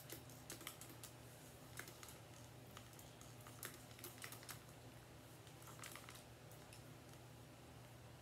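Faint, irregular crackles and rustles of fingers and a comb working through coily natural hair, fluffing out a twist-out, over a low steady room hum.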